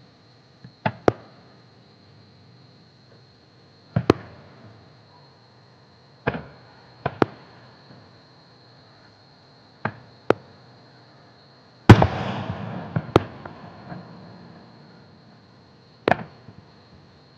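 Aerial firework shells bursting: about a dozen sharp bangs at irregular intervals. The loudest comes about twelve seconds in and is followed by a couple of seconds of crackle.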